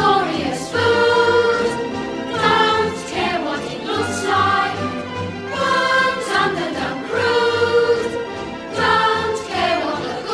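Choral music: a choir singing in phrases of long held notes, each a couple of seconds long.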